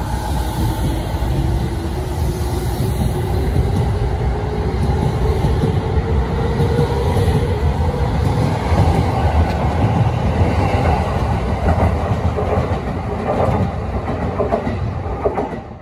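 JR 209 series electric commuter train pulling out of the station. Its motor whine rises steadily in pitch as it accelerates, and near the end the wheels clatter rhythmically over the rail joints.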